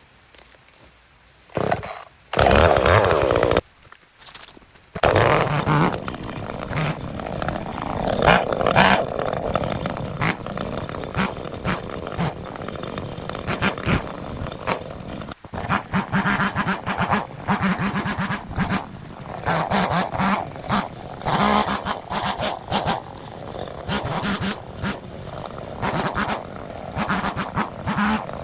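Chainsaw engine starting, running for about a second and stopping, then starting again about five seconds in and running on, revving up and down over and over as it cuts bamboo.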